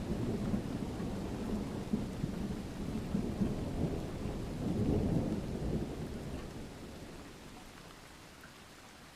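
Thunder rolling in a rainstorm, a deep rumble that swells about five seconds in and then dies away, leaving the faint patter of rain.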